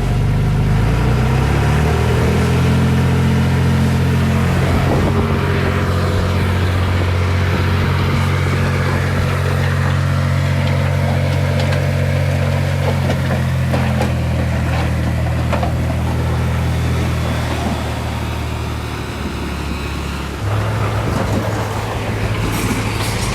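Heavy diesel engine of earthmoving machinery revving up in the first couple of seconds, then running steadily under load. It eases off a few seconds before the end and picks up again.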